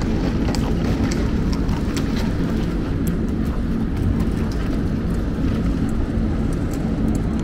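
Steady low outdoor rumble with faint light ticks scattered through it.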